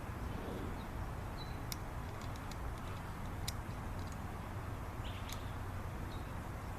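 A few sharp little clicks of a small metal pocket possibles tool being handled over a steady low background rumble.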